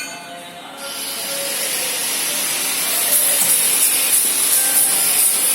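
Numerically controlled drilling machine running: a steady broad hiss that grows louder about a second in, with a high-pitched whine joining about three seconds in.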